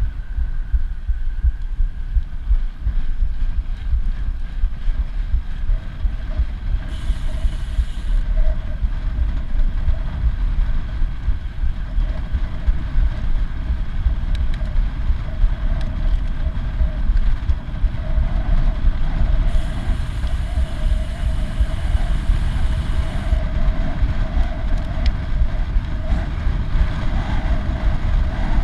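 Wind rushing over the microphone of a camera on a road bike riding at about 15 to 24 mph, a steady loud rumble, with the tyres humming on asphalt.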